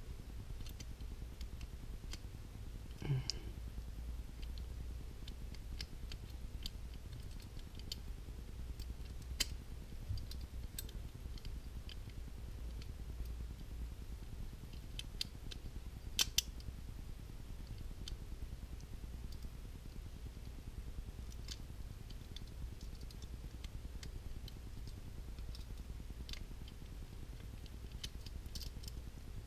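Sparse small metallic clicks and taps of a Ruger Vaquero single-action revolver's steel parts as the grip frame is worked back onto the frame by hand. The loudest is a pair of clicks about halfway through. A faint steady low hum runs underneath.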